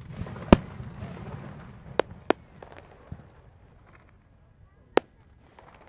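Aerial fireworks bursting: a loud bang about half a second in, two more in quick succession about two seconds in, a lighter one after three seconds and another sharp bang near five seconds. A low rumble trails off after the first bang.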